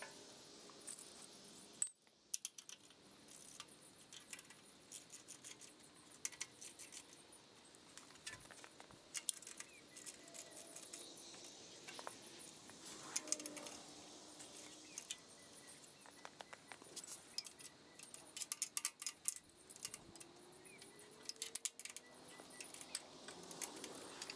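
Scattered sharp metallic clicks and clinks of hand tools (a wrench and socket) working on the engine's mounting bolts in a garden tractor frame.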